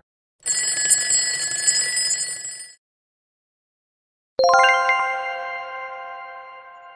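Quiz sound effects: a bell-like ringing for about two seconds as the countdown runs out, then, after a short silence, a single bright chime struck once that rings on and slowly fades as the answer is revealed.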